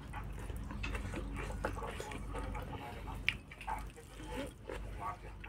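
Close-up wet chewing and lip-smacking of a person eating rice by hand: a run of small irregular clicks and squelches.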